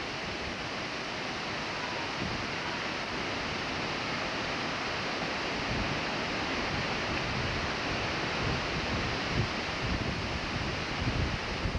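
Steady rushing wind noise, with gusts buffeting the camcorder microphone in a low, uneven rumble that grows over the last few seconds.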